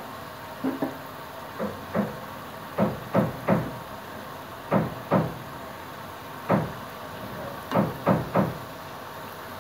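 Wontons sizzling faintly as they deep-fry in oil in a wok, with about a dozen sharp knocks in twos and threes as a metal utensil strikes the wok.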